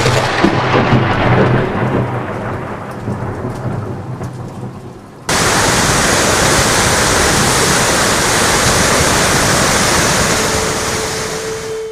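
A thunderclap that rolls away into rumbling over heavy rain. About five seconds in, it cuts suddenly to the loud, steady rush of a muddy flash-flood torrent, which eases near the end as a held music note comes in.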